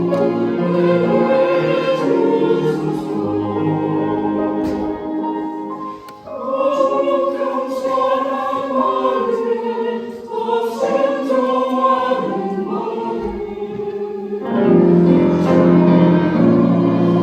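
Church choir singing an anthem in parts. The sound dips briefly about six seconds in, then comes back in a higher register, and swells louder and fuller near the end.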